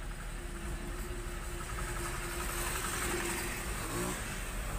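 Small engine of a motorized cart running as it passes close by. It holds a steady tone, then shifts and rises in pitch near the end.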